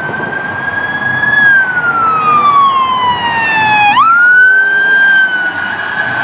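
Police car siren wailing: a high tone that holds, slides slowly down for a couple of seconds, then jumps sharply back up about four seconds in and holds, over road noise.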